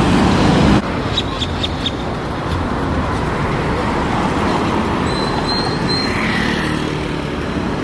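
City street traffic: cars driving past close by, with steady road and engine noise.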